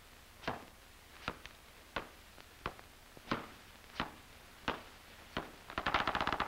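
Sharp knocks or taps on a hard surface at a steady walking pace, about one and a half a second, crowding into a quick rattle of clicks near the end.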